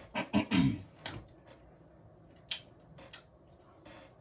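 A brief murmur, then a few scattered sharp crunches and clicks of eating Doritos nacho chips close to the mic.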